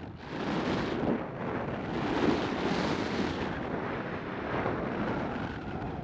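Wind rushing over the camera microphone of a paraglider in flight: a steady, gusting rush that picks up just after the start.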